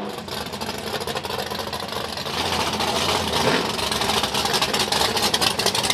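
Fox-body Ford Mustang drag car's engine running at a rough, crackling idle through open exhausts, growing louder about halfway through.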